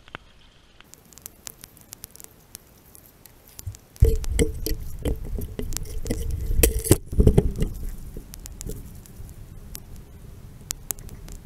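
Scattered drips and sharp ticks of water. About four seconds in, loud rumbling knocks and rubbing of the camera being moved start and last about four seconds, then ease into a soft steady wash of creek water with occasional ticks.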